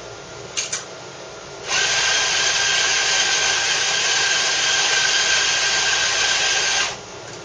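Compak K3 Touch coffee grinder grinding a preset double dose of espresso beans (14 g): a steady motor whine with grinding noise that runs for about five seconds and then cuts off. Two short clicks come just before it starts.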